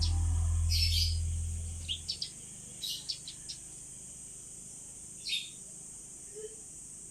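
African lovebirds giving short, sharp, high chirps, about eight scattered calls over several seconds, heard over a steady high hiss. Background music fades out during the first two seconds.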